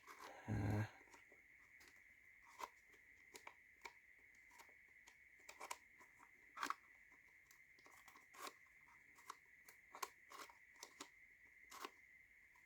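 Faint, irregular clicks and taps of wooden puzzle tiles being slid and nudged into place in a laser-cut slide puzzle box, over a faint steady high whine.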